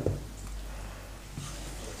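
Long wooden spoon stirring thick ogbono soup in a stainless steel pot, with a dull knock at the start, over a low steady hum.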